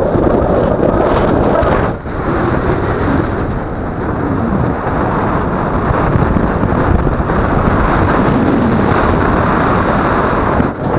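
Wind rushing over the camera's microphone in paraglider flight, a loud steady buffeting that drops briefly about two seconds in and again near the end.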